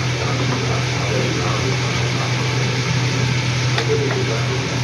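Steady machine hum with an even hiss, like a fan or motor running, with faint voices in the background.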